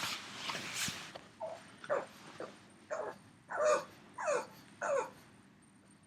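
Pug whining in a run of about six short calls, each sliding down in pitch, after a couple of breathy huffs. He is calling for a companion dog he misses.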